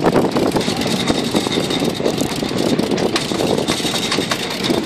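Sport-fishing boat's engine running steadily, with a faint high-pitched whine over the engine noise.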